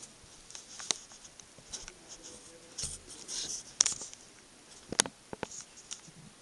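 Irregular light clicks and short scratchy scrapes from a milling machine's boring head being adjusted and turned by hand, its cutter wound out toward the bore wall, with the spindle not running. A few sharper metallic clicks stand out about 1, 4 and 5 seconds in.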